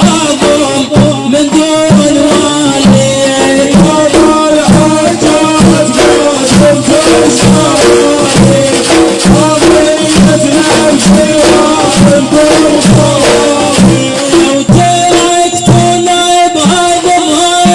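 Instrumental music with a steady drum beat under a held melody line, without sung words; the melody moves higher near the end.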